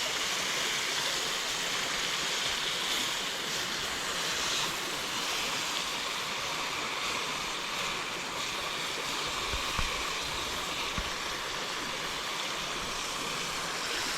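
Pieces of pork tenderloin sizzling steadily in hot oil in a wok, an even high hiss with a couple of faint knocks about ten seconds in.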